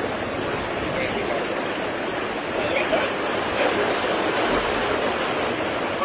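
Rushing, churning water around a river-rapids ride raft: a steady wash of water noise throughout.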